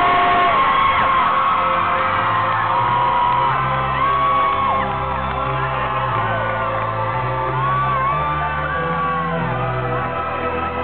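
Concert crowd screaming and whooping, many high-pitched screams overlapping, over a rock band playing an opening intro of sustained low notes that change about once a second.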